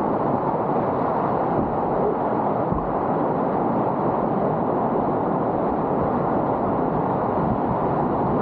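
Steady, loud rush of a river's whitewater running in high flood.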